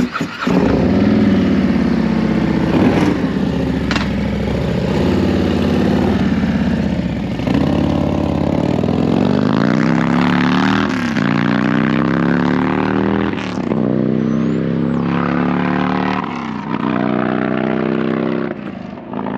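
Motorcycle engine running loud and close, revved so that its pitch climbs and falls back several times.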